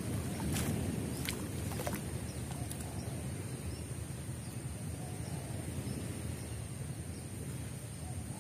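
Water sloshing and dripping as a man wading in a swamp pond hauls up a set fishing net and lifts it clear of the water, with a few sharp clicks in the first two seconds.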